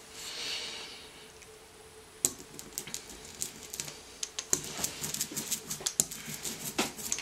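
Rubber brayer rolling oil-based silver printmaking ink out on a glass slab: a soft hiss at first, then a sticky crackle of many quick clicks that grows denser about halfway through, the sound of a heavy load of tacky ink on the roller.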